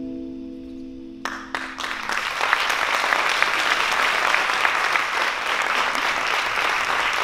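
The last held chord of the dance music dies away, and audience applause breaks out: a few separate claps a little over a second in, building into steady, full applause by about two and a half seconds.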